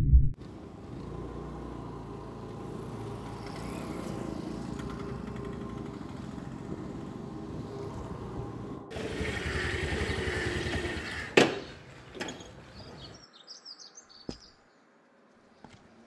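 Steady street traffic noise with passing motor vehicles, growing louder about nine seconds in, with a single sharp knock about eleven seconds in. It then falls away to near quiet, with small birds chirping.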